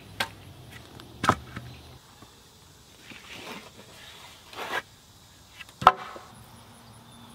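Wooden form boards being knocked and pried off the edge of a fresh concrete slab with a hammer: several sharp wooden knocks and clunks, the loudest near the end.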